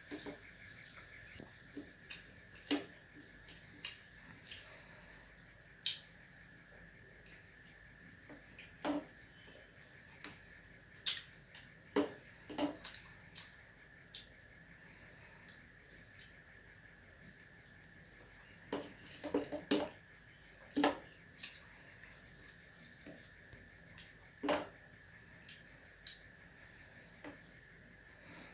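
A cricket chirping steadily in a fast, even pulse, with scattered short clicks and smacks of someone chewing food.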